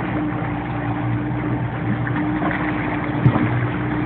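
Boat engine running steadily at idle, a constant hum, with one short tap a little over three seconds in.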